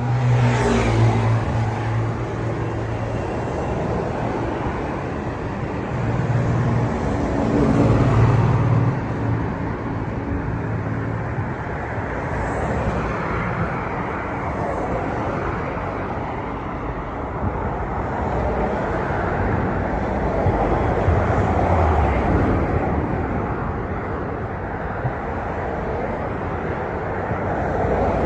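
Road traffic: a steady wash of vehicle noise, with engine hum swelling as vehicles pass, once near the start, again a few seconds later and once more past the middle.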